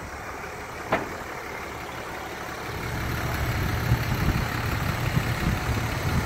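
Pickup truck's engine idling with an uneven low rumble that grows louder a few seconds in, after a single sharp click about a second in.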